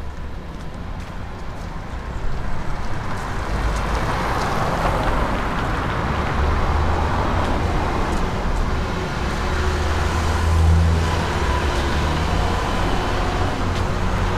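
Street traffic: cars running along the road beside the pavement, getting louder about two seconds in as vehicles pass.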